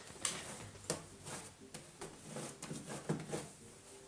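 Hands kneading and squeezing a soft, fluffy shaving-cream slime, giving irregular sticky squishes and clicks several times a second.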